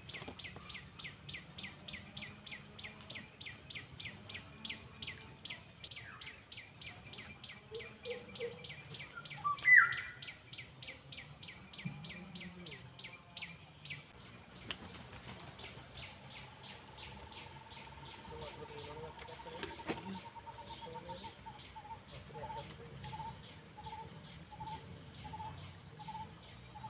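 Outdoor wildlife calls: a rapid high chirping about four times a second through the first half, then a clear note repeated about twice a second. A single sharp sound about ten seconds in is the loudest moment.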